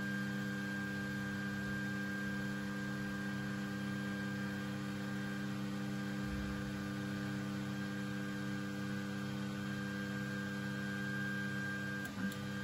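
Creality Ender 3 stepper motors, driven by the stock board's A4988 drivers, giving a steady hum of several held tones as the printer moves: the loud motor noise typical of the A4988 drivers. The tones break off near the end.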